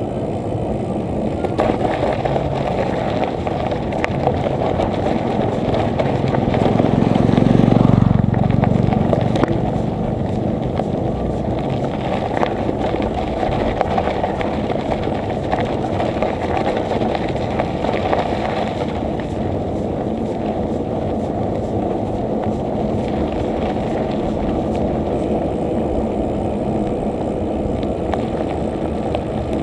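Steady wind and tyre-on-road noise from riding a bicycle, with a louder low rumble that swells and fades about seven to nine seconds in.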